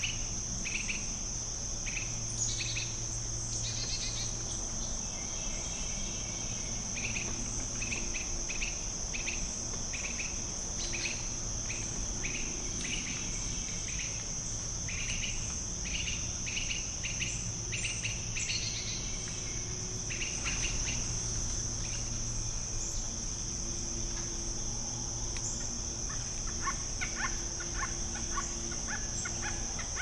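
Tropical rainforest ambience: a steady high-pitched insect drone with a bird calling in short repeated notes, and a quicker run of calls near the end.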